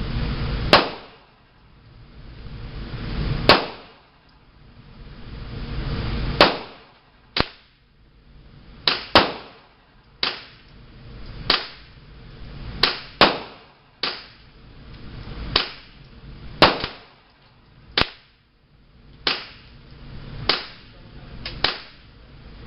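Gunfire on a shooting range: about eighteen sharp gunshots at irregular intervals, roughly one every second or so, some fired in quick pairs.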